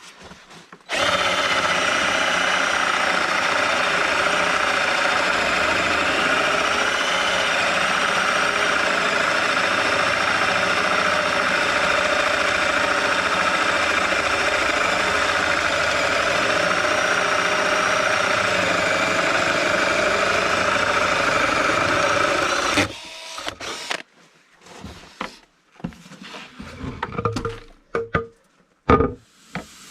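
An electric power tool's motor running steadily at one speed for about twenty seconds, then cutting off abruptly; after it come several short, irregular bursts of sound.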